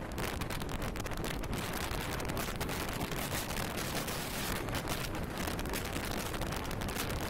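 Running noise of a moving passenger train: a loud, steady rush packed with fine rattling clicks, with wind on the microphone. It starts suddenly.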